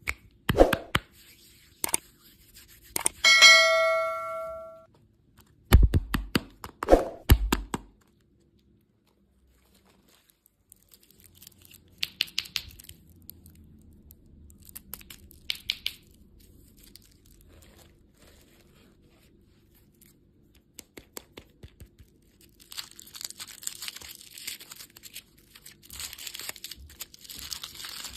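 Candy packaging being opened by hand: clicks and knocks, a ringing ding about three seconds in, and a few thumps. After a brief silent gap comes the crinkling and tearing of plastic wrappers, growing dense and steady near the end.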